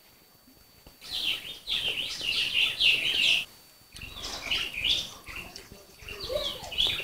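Small birds chirping in quick runs of high notes, in several bouts with short pauses between them.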